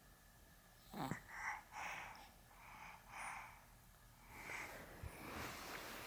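A sleeping pet's little snores: a series of short, breathy snuffles, the first, about a second in, the loudest.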